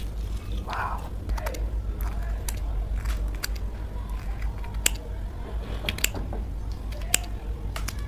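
Metal spoon mixing chopped panipuri stuffing in a steel bowl, soft close handling sounds broken by a few sharp clinks of the spoon against the steel.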